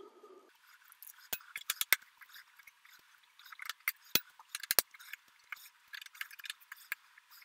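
Irregular sharp clicks and light scrapes of a hand tool working the fasteners of a DeWalt 735X thickness planer's side cover.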